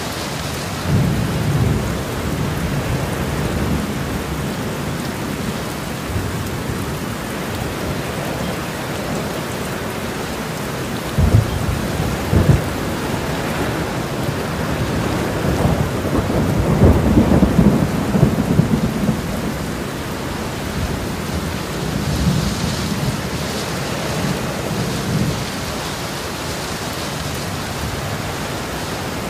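Steady heavy rain with rolling rumbles of thunder, loudest about eleven seconds in and again around seventeen to nineteen seconds.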